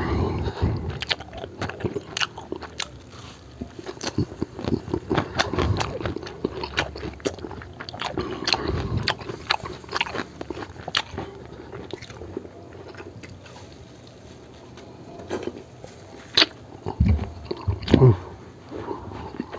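Close-miked eating sounds: a person biting and chewing food in irregular clicks and smacks. It goes quieter for a few seconds past the middle, then picks up again.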